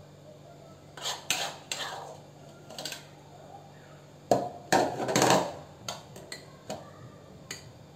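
A spoon clinking and scraping against glass as thick whipped dalgona coffee is dolloped into a glass. There are scattered knocks at first, a louder run of knocks and scraping around the middle, then a few light clicks.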